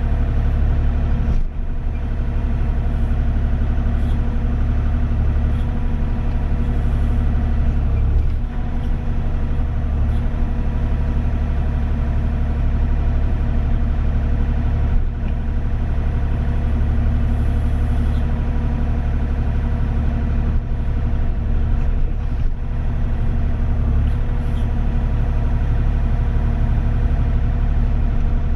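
Kubota KX040 mini excavator's diesel engine running steadily, heard from the operator's seat, with a few brief dips in loudness.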